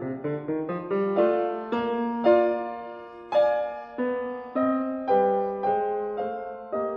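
Solo piano music: a quick run of notes in the first second, then slower single notes, each struck and fading away.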